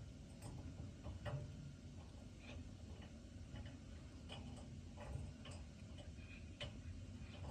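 Light, irregular clicks and taps from a cat inside a dishwasher, roughly one or two a second.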